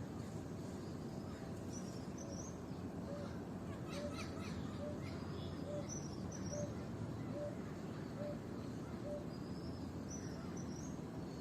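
Birds calling over a steady background hum. One bird repeats a short high phrase every few seconds, and another gives a series of about eight short, low, evenly spaced notes through the middle. A brief patter of clicks comes about four seconds in.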